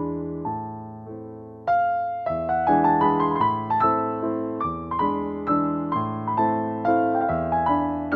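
Background piano music: a steady run of struck notes, softer at first and growing louder about a second and a half in.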